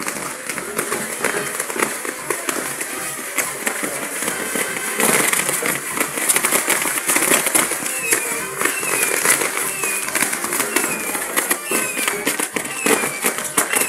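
A pyrotechnic castle (castillo), a tall cane tower of fireworks, burning: a steady hiss of spark fountains with dense crackling and popping of firecrackers. From about eight seconds in, a short falling whistle repeats over and over.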